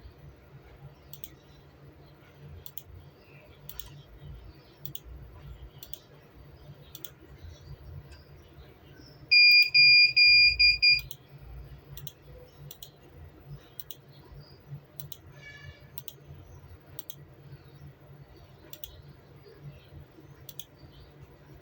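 Faint, irregular clicking, like a computer mouse, over a low steady hum. About halfway through, an electronic beeper sounds a quick run of about five loud beeps at one high pitch, lasting about a second and a half.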